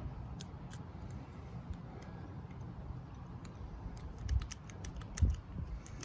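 Small metallic clicks and scrapes of a pick tool against a lawn mower carburetor as the brass emulsion tube is pushed out. The clicks come closer together in the last two seconds, with two dull knocks among them.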